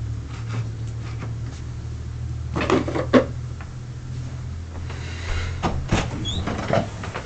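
Knocks and clatters, the loudest about three seconds in, over a low steady hum that fades out about six seconds in.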